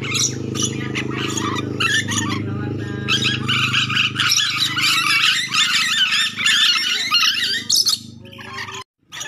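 Ornate lorikeets (nuri dora) calling: harsh, dense, chattering squawks, thickest from about three seconds in until near the end, over a steady low hum. The sound cuts off abruptly near the end.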